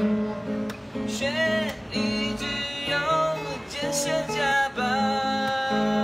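Acoustic guitar strummed in chords to accompany a song, with a wavering melody line held over it.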